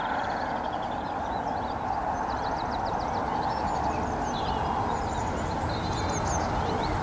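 Outdoor lakeside ambience: a steady low rumble of background noise with small birds twittering in quick runs of short, high chirps.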